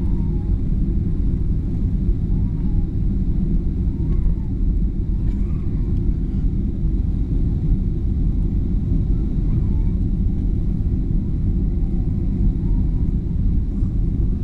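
Steady low rumble of jet engine and airflow noise heard inside an airliner cabin during the descent to land.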